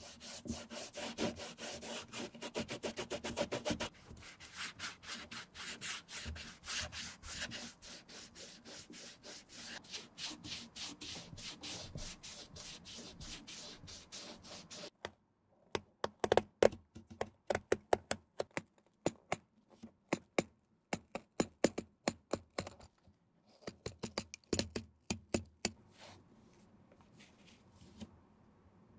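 A cotton ball gripped in forceps scrubbed rapidly back and forth over the white rubber midsole of a sneaker sole. About halfway through the scrubbing stops abruptly and is followed by separate sharp scratches and clicks from hand work on the shoe's upper, which thin out near the end.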